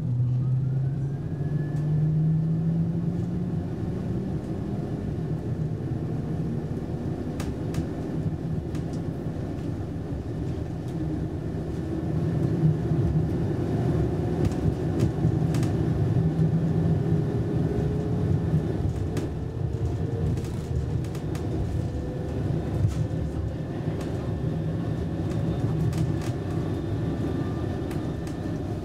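Interior of a Roslagsbanan X10p electric train under way: steady low rumble of the wheels and running gear, with scattered clicks. A motor whine rises slowly in pitch as the train gathers speed.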